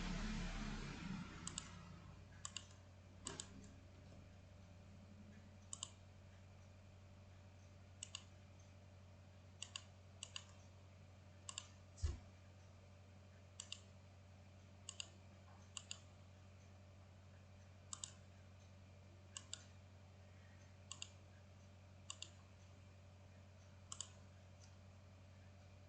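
Computer mouse button clicking every second or two, many of the clicks a quick close pair of ticks, while dimension points are picked on corners in AutoCAD. Under it runs a steady low electrical hum, and there is one dull low thump about twelve seconds in.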